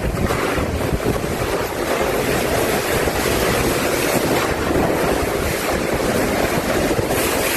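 Steady loud rushing of water, with wind buffeting the microphone.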